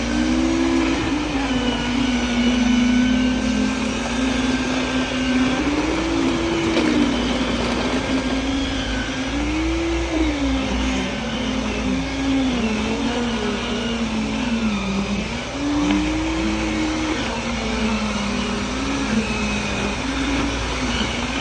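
Concrete poker vibrator running, its high-speed motor humming steadily, with the pitch sagging and recovering again and again as the load on it changes.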